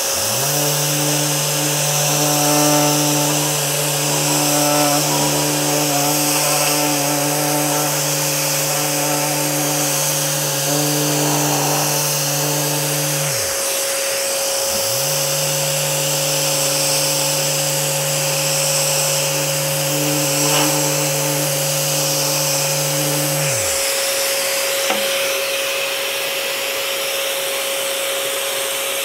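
Uneeda Ekasand 3-by-4-inch rectangular sander running against quarter-round molding, with its tool-actuated dust-extraction vacuum drawing through the hose. The sander winds down about halfway through, starts again a second later and winds down again near the last few seconds. The vacuum runs on alone after the sander stops, clearing dust from the line.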